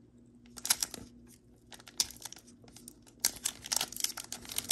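Foil Pokémon TCG 151 booster pack wrapper being torn open and crinkled by hand. There are short crackles about half a second in and again at two seconds, then a longer run of crinkling from about three seconds in.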